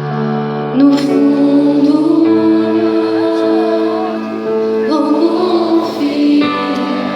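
Christian worship song being sung over held instrumental chords. A singing voice comes in about a second in.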